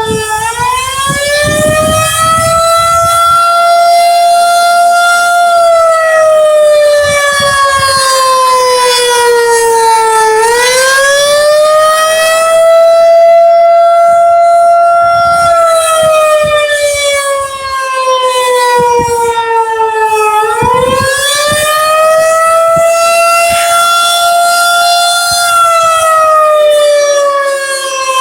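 Tornado warning siren sounding loud and close in a wail: its pitch slowly rises and falls, about one full cycle every ten seconds.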